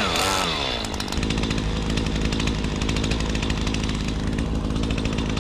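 Chainsaw engine coming off the throttle: the revs fall from cutting speed over about the first second, then settle into a steady idle.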